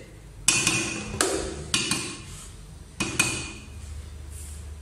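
Four sharp metallic clanks with a short ring: a metal spoon knocking against a large metal cooking pot while korma is spooned in.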